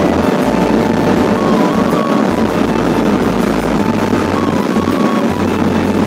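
Background music with a low bass line, laid over the steady wind rush and engine noise of a Bajaj Pulsar RS200 motorcycle riding at highway speed.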